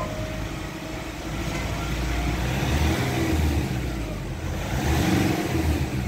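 Nissan car engine revved while parked, rpm rising from about 1,500 to 2,300 and swelling twice, around three and five seconds in. It is a throttle-response check after an engine treatment meant to cure a throttle delay.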